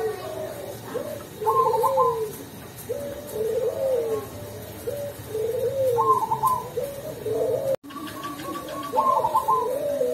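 Zebra dove (perkutut) of the black cemani strain cooing: repeated song phrases, each a short high opening note followed by rolling lower coos, about four phrases in all. The sound drops out for an instant nearly eight seconds in.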